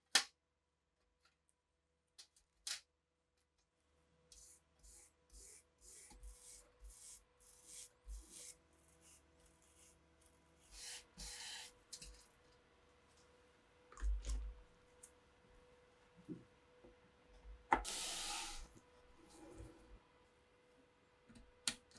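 A brush scrubbing a rusty steel machine-gun part in rapid short strokes, with scattered clicks and knocks of metal parts being handled. A longer hissing burst comes about four seconds before the end.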